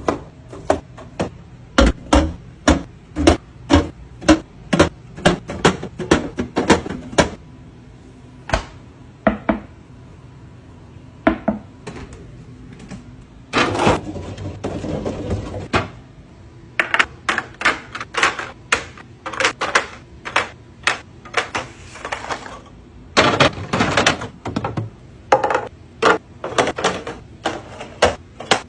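Food containers and packaging being handled while restocking a fridge: a run of sharp clicks, taps and knocks as plastic containers and lids are set down and snapped shut, with stretches of rustling in the middle and near the end.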